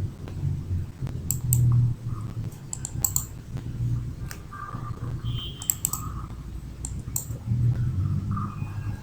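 Computer keyboard keys and mouse buttons clicking in scattered, irregular strokes over a low rumble.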